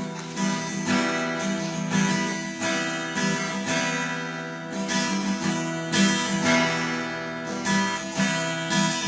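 Acoustic guitar strummed in a steady rhythm, playing the introduction to a song.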